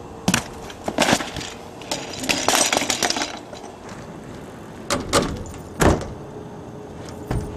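BMX bike and rider crashing, the bike's metal frame and wheels slamming and clattering on pavement and a ramp: a string of sharp separate impacts, with a longer scraping clatter about two to three seconds in.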